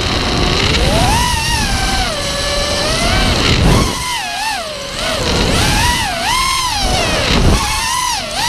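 Brushless motors of a 5-inch FPV racing quadcopter (Scorpion 2205 2350kv with three-blade props) whining, the pitch swooping up and down with the throttle, with several sharp dips. Wind rumbles on the onboard camera's microphone underneath.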